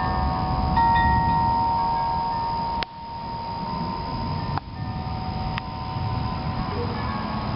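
Wind chimes ringing with long, overlapping tones over a steady low rushing noise. Two sharp clicks, each with a sudden dip in level, come a little before and a little after the middle.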